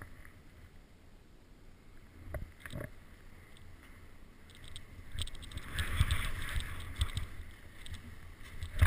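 Sliding over snow on a steep slope: a soft hiss with a low rumble on the microphone. It is quiet at first with a couple of sharp clicks a few seconds in, then louder swishes come in waves from about halfway.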